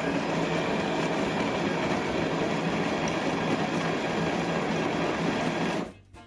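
Melitta Aromafresh grind-and-brew coffee machine's built-in conical burr grinder running steadily, grinding coffee beans, then stopping abruptly near the end.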